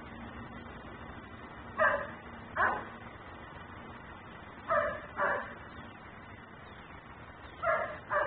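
German shepherd barking in short pairs of barks, three pairs a few seconds apart, the nuisance barking of a dog left outside in a neighbouring yard.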